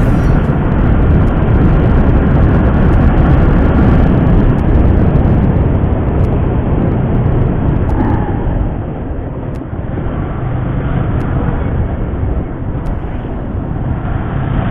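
Yamaha R15 motorcycle running at riding speed, its engine under a heavy rush of noise; it gets quieter about eight and a half seconds in as the bike eases off.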